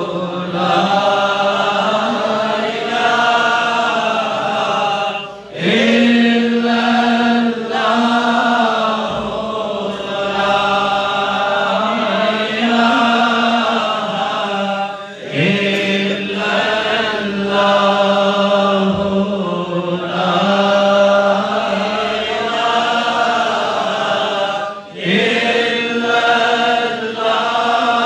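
Male voices chanting Sufi devotional verses in long, melodic phrases of about ten seconds each, with a short break for breath between phrases.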